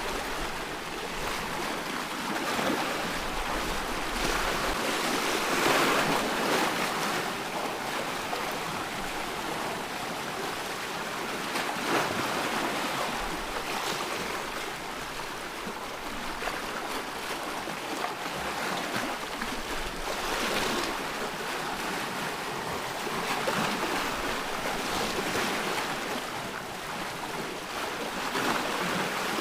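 Ocean waves washing onto a shore: a steady hiss of surf that swells every several seconds as waves break.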